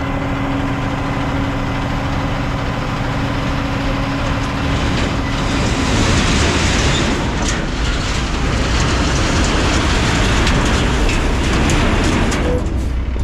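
Heavy equipment engine running steadily. About halfway through, a louder rushing, clattering noise with scattered knocks joins it, and it drops away near the end.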